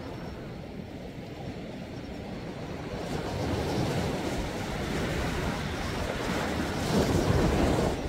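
Sea waves washing onto the shore: the surf swells from about three seconds in and is loudest near the end, then drops away.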